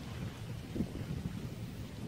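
Wind buffeting the microphone outdoors: a low, uneven rumble that wavers in level, with a brief higher blip about halfway.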